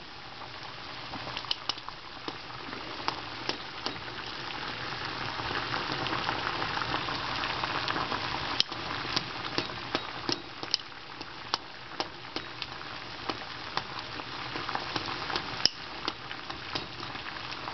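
Water at a rolling boil in a small saucepan, bubbling steadily and growing louder for a few seconds in the middle, with frequent light clicks and taps of metal kitchen tongs against the pan and the floating ping pong ball.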